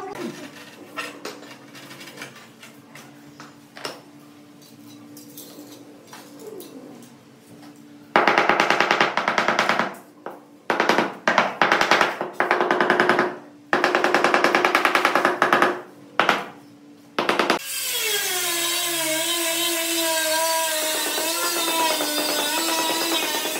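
Handheld power tool run in a series of loud bursts of a few seconds each, with a rapid hammering rattle, worked on the tiled floor. In the last several seconds it gives way to a steady sound with a wavering pitch.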